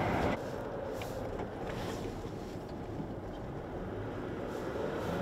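Pickup truck driving along a wet road, a steady road and engine noise heard from inside the cab.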